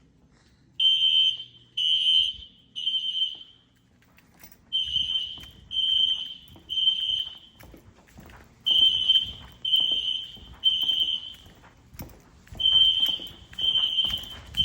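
System Sensor SpectrAlert Advance fire alarm horn sounding the temporal-3 evacuation pattern: three loud, high beeps about a second apart, then a pause, repeating four times. It is loud enough that an older SpectrAlert horn can hardly be heard under it.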